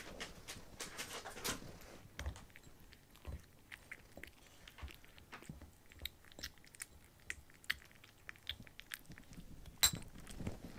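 Kittens eating from food bowls: faint, irregular chewing and biting clicks, with one sharper click near the end.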